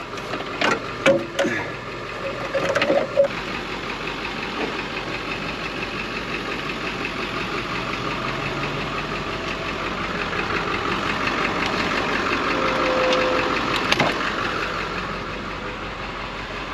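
Tow truck's engine idling steadily, growing louder toward the middle and easing off near the end. A few sharp metallic clicks and knocks in the first few seconds.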